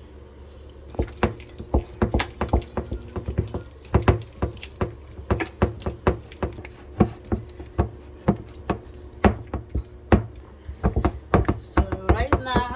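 A utensil knocking and scraping against a bowl as a thick, freshly microwaved plantain fufu dough is stirred and worked smooth. The knocks are sharp and irregular, a few a second, starting about a second in, over a low steady hum.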